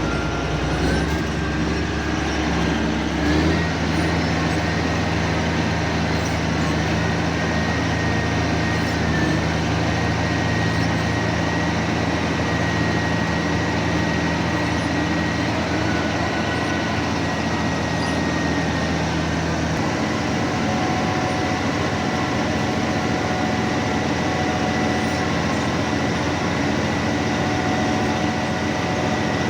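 Bulldozer's diesel engine running steadily under work, with a high steady whine above the engine note. The deep engine tone eases off about two-thirds of the way through.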